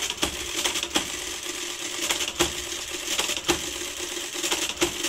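Rheinmetall SAR IIc electromechanical calculator running an automatic division (1 divided by 7): its motor hums steadily under rapid mechanical clattering and sharp clacks as the carriage steps along.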